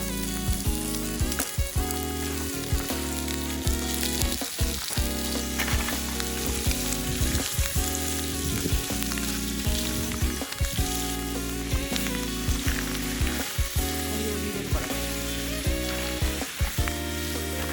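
Food sizzling steadily in a frying pan, with background music playing over it.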